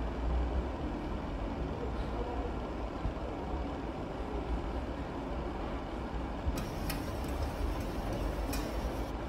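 A steady low rumble of background machinery throughout, with a few short, sharp scraping strokes of a hand vegetable peeler on a white root vegetable in the last few seconds.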